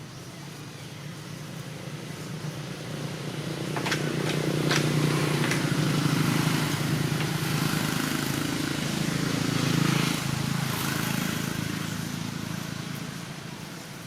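A motor vehicle's engine passing close by: it grows louder over a few seconds, holds, then fades away. A few sharp clicks sound about four to five seconds in.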